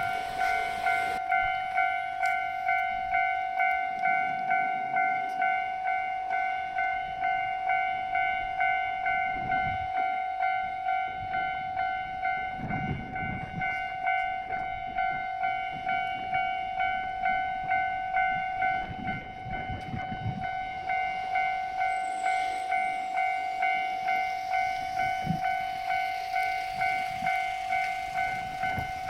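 Japanese railway level-crossing warning bell switching on suddenly and ringing its electronic 'kan-kan' at an even pace of about two strokes a second.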